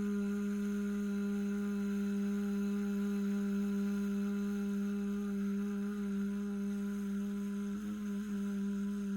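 A woman's voice holding one long, steady buzzing 'vvv' hum on a single pitch, the 'vibrating V' breath exercise of laughter yoga. The pitch wavers slightly near the end.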